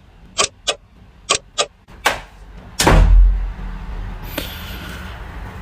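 A few quick sharp clicks, then a door slammed shut just before three seconds in, the loudest sound, with a low boom lingering after it.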